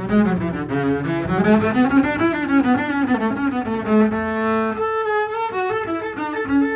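Solo double bass played with the bow: a flowing melody in the instrument's high register that rises and falls, with a longer held note about four seconds in.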